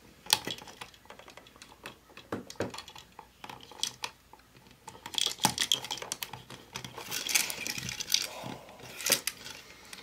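Scattered small clicks, taps and scrapes as a copper house wire is pushed into the push-in back-wire hole of a Lutron three-way dimmer switch and the switch's metal yoke and plastic body are handled, with a busier stretch of scraping about three-quarters of the way through.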